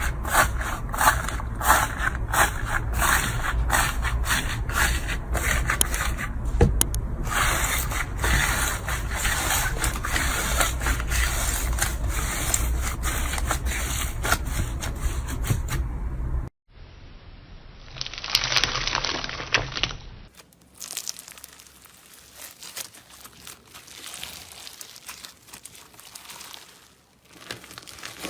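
Slime being pressed, squeezed and stretched by hand, giving sticky clicks and crackles. For the first half these come in a quick run of sharp pops, about two or three a second. After a cut there is a short dense burst of crackling, then softer scattered crackles.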